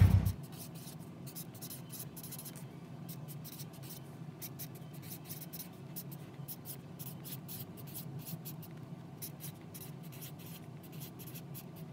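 Chisel-tip Sharpie marker writing on card, a run of many short separate strokes as the letters are drawn, over a faint low hum.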